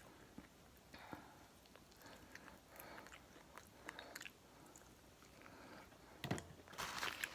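Quiet chewing of chicken wings close to the microphone: soft scattered clicks and smacks, with one sharper knock about six seconds in.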